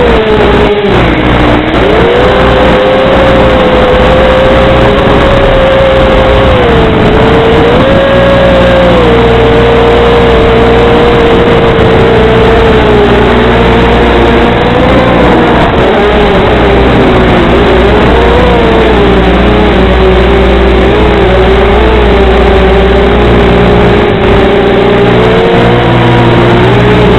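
Electric motors and propellers of a small radio-controlled FPV aircraft whining loudly, the pitch rising and falling as the throttle changes, over a steady low hum.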